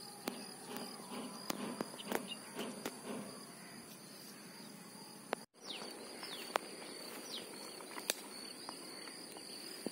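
Faint lakeside ambience: a steady high insect drone, a few short falling bird chirps after about six seconds, and scattered light clicks.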